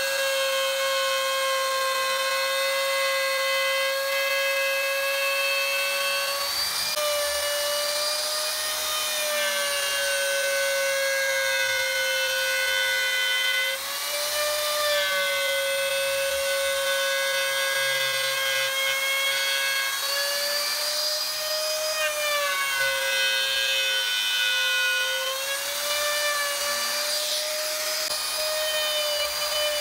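Handheld wood router running at high speed while routing a relief carving into a wooden panel: a steady high whine over the hiss of the cut, its pitch wavering slightly as the bit is fed through the wood. There is a brief dip in loudness about halfway through.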